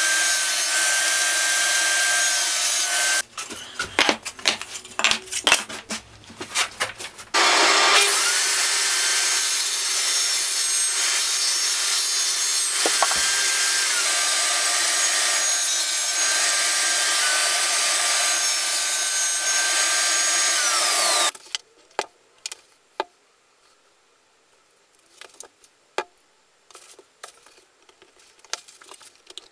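Table saw running and cutting Sapele hardwood: a loud steady whir with a high motor whine that dips slightly in pitch as the blade takes the wood. It stops abruptly about three seconds in, leaving a few light knocks, starts again about seven seconds in with the whine rising as it comes up to speed, and cuts off sharply about two-thirds of the way through. The rest is scattered light taps and clicks of wooden pieces handled on a bench.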